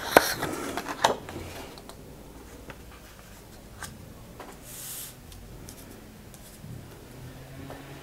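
Sheets of printed paper being handled and laid on a wooden tabletop: a couple of light taps in the first second, a few small clicks, and a brief papery slide about five seconds in.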